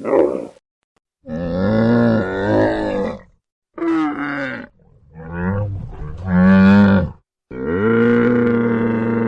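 Camel calling: a brief call, then four drawn-out, wavering calls with short pauses between them, the last still going at the end.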